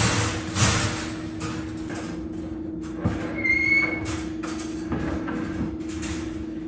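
Metal wire dog crate rattling and clinking as it is handled and set in place, with a short high squeak about three and a half seconds in.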